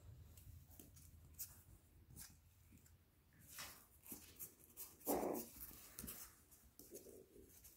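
Yorkie puppies at play, with faint scuffs and ticks. One puppy gives a short whimpering cry about five seconds in, the loudest sound, and a softer one comes about two seconds later.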